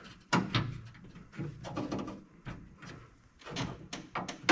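Hand-handled metal latch and linkage parts clicking, knocking and rubbing, with a sharp knock about a third of a second in and another near the end.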